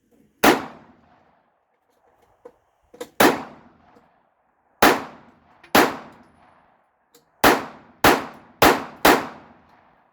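Handgun fired eight times, slowly at first and then in quicker succession near the end, each shot loud and sharp with a short ringing tail.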